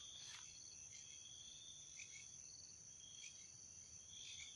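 Near silence with faint crickets chirping in a steady high trill.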